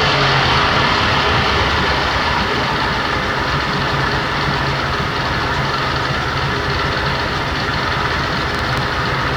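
1992 Johnson 60 hp two-stroke outboard motor idling steadily under its cowling, freshly cold-started with the choke and running smoothly as it warms up.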